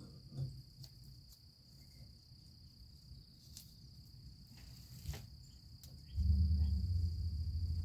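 Crickets chirping steadily, with a few faint clicks. About six seconds in, a louder low, steady droning hum starts, like a motor or engine.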